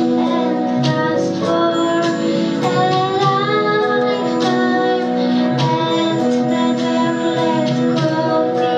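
A young girl singing a song into a microphone with instrumental backing, holding long notes and gliding between them.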